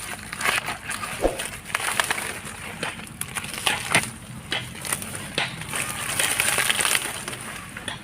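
Irregular splashing and squelching of hands working through shallow muddy water and water hyacinth, with many short sharp crackles.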